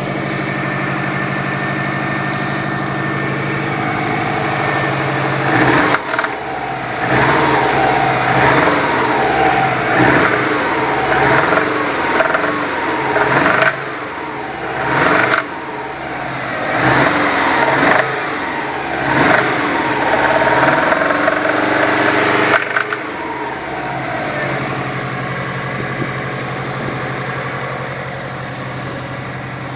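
Subaru RB5's flat-four engine idling, then blipped through a string of revs over the middle of the clip before settling back to idle, run to show the engine knock it has developed.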